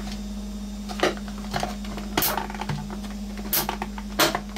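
Sharp plastic clicks and taps as a spudger and screwdriver pry at the clipped-together plastic back casing of an iPod dock speaker, the clips resisting. There are four distinct clicks about a second apart, with smaller ticks between them.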